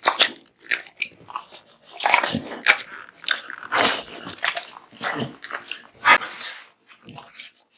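American Bully dog biting and chewing raw meat and bones, with loud irregular crunches between wetter chewing.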